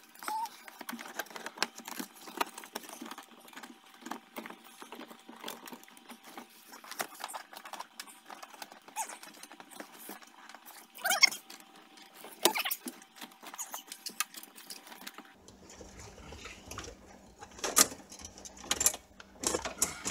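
Irregular clicking, rattling and rustling of hands working stereo wiring loose from under glued-down car carpet, with a couple of sharper snaps a little past the middle.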